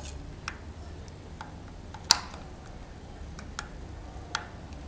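Light clicks of fingertips and fingernail on the CuBox-i's plastic case and microSD card slot while trying to pull the card out, which does not come free. A few scattered clicks, the loudest about two seconds in.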